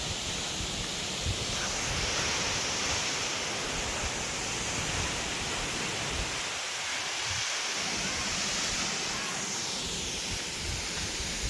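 Steady rush of a waterfall's falling water, with irregular low buffeting of wind on the microphone.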